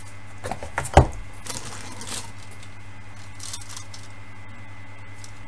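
Box contents being handled: a few light clicks, then a sharp knock about a second in, followed by soft rustling.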